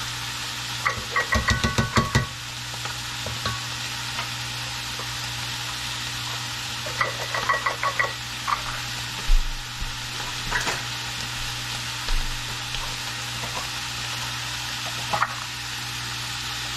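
Pork and pork liver sizzling as they sauté in a pan, with a metal utensil clinking and scraping against the pan in two quick flurries, about a second in and again around seven seconds in, and a few single knocks later.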